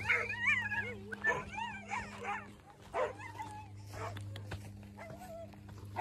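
Pudelpointer puppy whining and yipping: several wavering high cries in the first two and a half seconds, then a few shorter ones, as the excited puppy scuffles with a caught quail.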